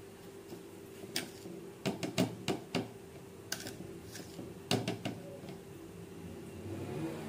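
Sharp knocks and clinks of kitchenware being handled, in a quick run of four about two seconds in and a few more around five seconds in, over a steady low hum.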